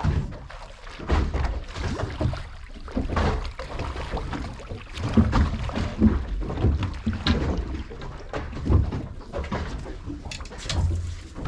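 Irregular knocks and bumps on the deck of a small fishing boat at anchor, over a low rumble.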